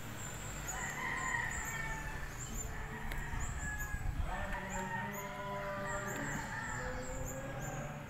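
A rooster crowing: two long calls, one about a second in and a longer one from about four seconds in, over high, rapidly repeated chirping.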